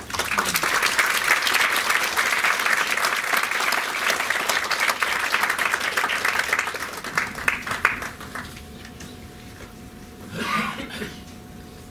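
Audience applauding. The clapping thins out to a few scattered claps after about seven seconds and stops around eight seconds in.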